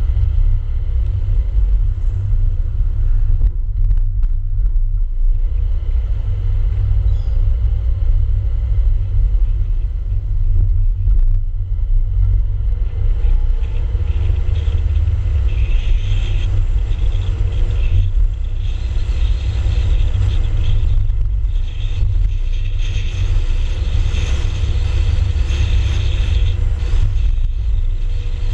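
Steady low rumble of a car on the move, made up mostly of wind buffeting the camera's microphone and road noise, with a hiss that gets stronger about halfway through.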